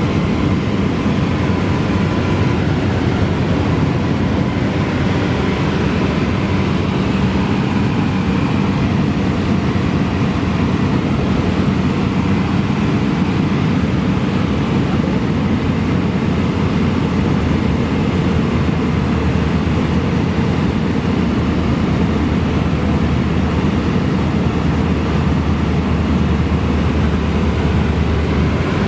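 Cessna 172's piston engine and propeller droning steadily in flight, heard from inside the cabin, with no change in pitch.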